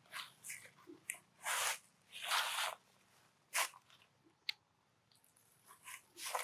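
Dry fallen leaves crunching underfoot in several short, uneven bursts, loudest in the first three seconds or so, with a single sharp tick about four and a half seconds in.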